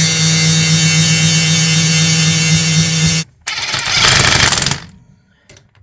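Angle grinder cutting steel square tubing held in a vise, a steady loud whine that cuts off suddenly about three seconds in. About half a second later a cordless impact driver hammers for about a second, running down a carrier bearing cap bolt on a Dana 30 differential, then starts again at the very end.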